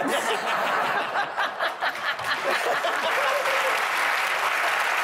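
Studio audience applauding, with laughter mixed in over the first couple of seconds, in answer to a joke.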